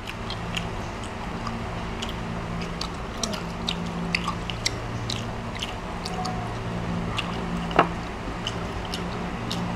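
People chewing and smacking their lips while eating grilled prawns, with scattered small clicks from peeling the shells by hand and one sharper click about eight seconds in, over a steady low hum.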